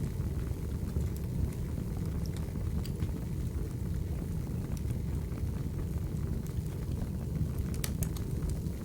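Wood fire crackling: a steady low rumble of burning logs with scattered sharp pops and snaps, and a quick cluster of pops near the end.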